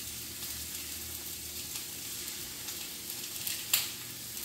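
Steak searing in a hot pan, sizzling steadily with faint crackles, and one sharp knock a little before the end.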